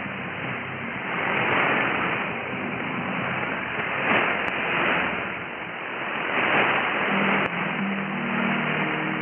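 Weak shortwave AM broadcast signal on 4865 kHz heard through a receiver: hiss and static that swell and fade every couple of seconds as the signal fades. From about seven seconds in, faint tones from the station's programme come through the noise.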